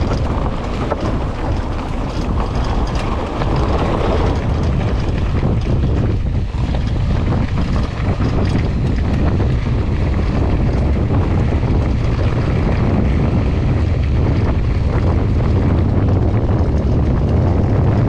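Wind buffeting an action camera's microphone on a mountain bike riding a dirt trail, with a steady low rumble and many small clicks and rattles.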